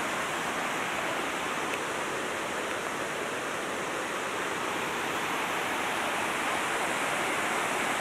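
Steady, even rush of water pouring over a small dam's spillway.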